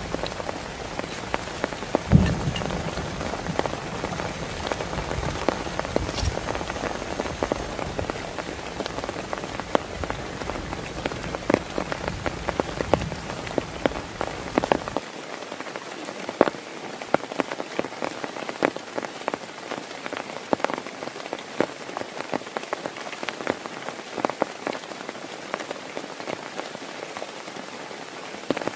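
Heavy rain falling, with many sharp individual drops striking a nearby surface over a steady hiss. There is a single louder knock about two seconds in, and a low rumble underneath stops abruptly about halfway through.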